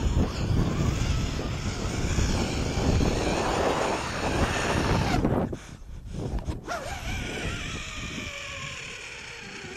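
Wind buffeting the microphone of a camera swinging through the air on a rope swing, a heavy rushing rumble that drops sharply about five and a half seconds in and stays quieter after that.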